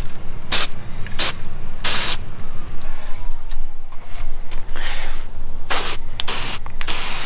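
Aerosol spray paint can hissing in short bursts as a coat is laid on the side of a part. There are three quick bursts in the first two seconds, a faint one midway, and a quicker run of bursts near the end.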